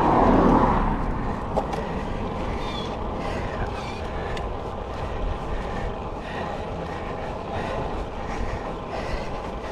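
Wind rushing over the microphone and tyre rumble from a road bike being ridden, with a louder gust in the first second and scattered small rattles and knocks from the road surface.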